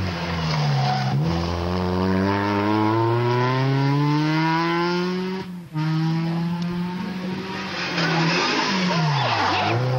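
Rally car engine under hard acceleration on a gravel road, its pitch climbing steadily for several seconds. It breaks off briefly for a gear change about five and a half seconds in, then runs on. Near the end the pitch drops and climbs again, with gravel noise from the tyres.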